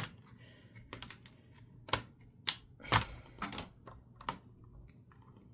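Sharp plastic clicks and taps of a RAM stick being handled and pressed into a motherboard memory slot, with the slot latches snapping shut. About eight irregular clicks, the loudest about three seconds in, stopping near the end.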